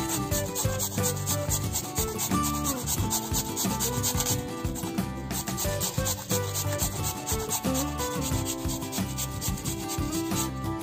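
Raw peeled potato being grated on a flat stainless-steel hand grater, repeated scraping strokes of potato against the metal teeth.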